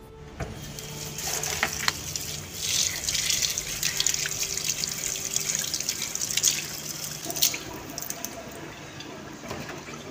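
Kitchen faucet running into a sink, the stream splashing over hands rinsing something held under it. The flow stops about three-quarters of the way through, with a few sharp clicks around that point.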